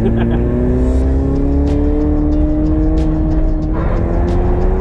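Toyota AE86 drift car's engine heard from inside the cabin, pulling under throttle with its pitch slowly rising; a hiss of tyre noise comes in near the end. Music with a regular beat plays over it.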